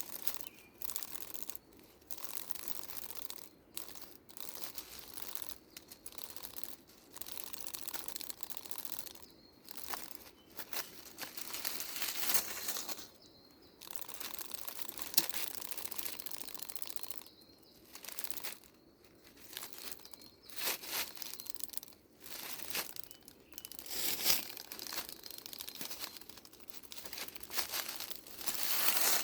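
Dry leaf litter rustling and crackling in irregular bursts, with a few brief pauses.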